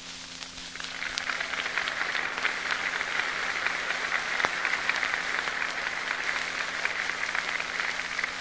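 Large open-air crowd applauding, swelling up about a second in and then holding steady, heard on an old 1942 recording with a steady low hum underneath.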